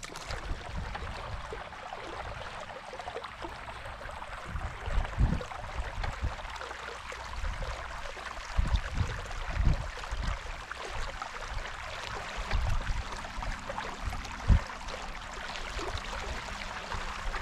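Water swishing along the hull of a pedal-drive stand-up paddleboard moving across a lake, with irregular low thumps.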